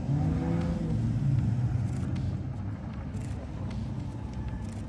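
A motor vehicle driving past on a city street, its engine and tyre noise loudest in the first second or two, then slowly fading.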